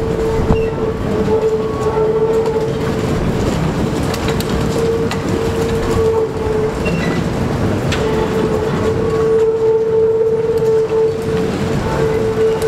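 Maxon R49 subway flat cars rolling slowly past on the track, wheels rumbling over the rails with a few scattered clanks, under a steady whining tone.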